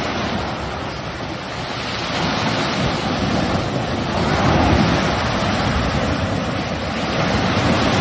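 Sea surf breaking and washing up the shore: a steady rushing wash that swells louder about halfway through.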